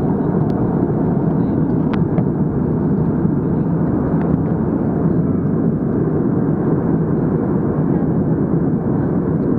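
Jet airliner cabin noise in cruise flight: a steady, unchanging rush of engine and airflow noise, heaviest in the low range, with a few faint clicks.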